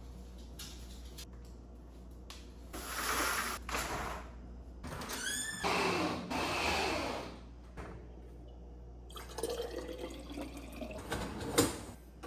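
Water pouring into a container in two spells, its pitch rising as it fills, then a few light clinks of dishware near the end.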